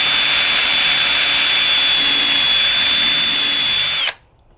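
Power drill running at full speed with a steady high whine, drilling a mounting hole in the kayak's plastic hull, then stopping abruptly about four seconds in.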